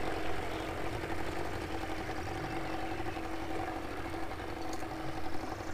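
Small outboard motor on a nearby boat running steadily at low speed, a constant hum.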